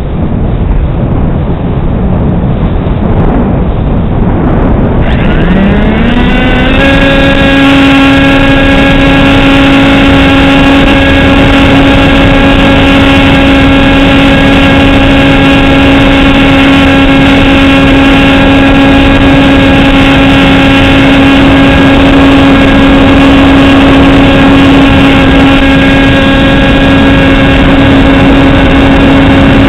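Model aircraft's motor and propeller heard from its onboard camera. At first it is mostly wind rushing over the microphone; about five seconds in, the motor spins up in a rising whine and then holds one steady, loud drone at constant throttle.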